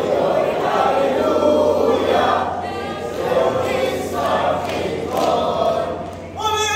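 A group of Rover Scouts singing and chanting their camp yell together in unison, many young voices at once, with a single clearer voice cutting in near the end.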